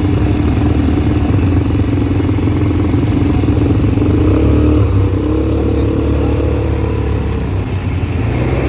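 ATV engine running under way, loud and steady, its pitch rising about halfway through as it speeds up, then easing off near the end.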